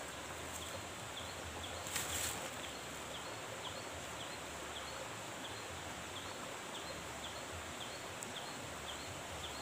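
Steady insect drone in riverside undergrowth, with a short high chirp repeating regularly a little more than once a second and one brief rustle about two seconds in.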